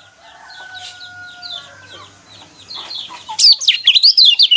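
White-eyes chirping in rapid, high, zig-zagging notes, faint at first and turning loud about three seconds in. This is a lure recording of white-eye competition song, played to provoke caged white-eyes into singing.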